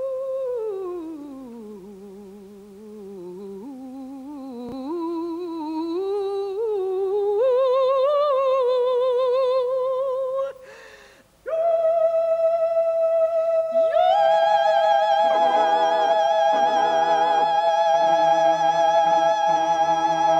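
A trained singing voice with wide vibrato holds a note, slides down and wavers back up, then after a brief break sustains a long final note. A second held note joins above it a few seconds later, ending the song in harmony.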